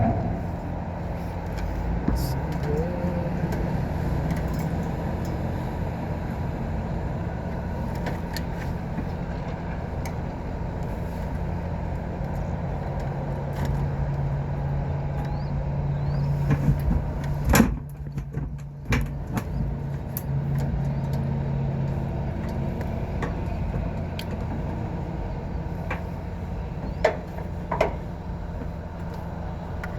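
A steady mechanical hum with a low droning tone, broken by a few scattered clicks and knocks; the hum dips briefly a little past halfway, and two sharper knocks come near the end.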